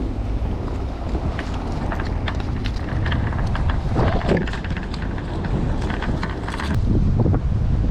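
Wind rumbling on the microphone over sea surf, with an irregular run of small clicks and taps through the middle of the stretch.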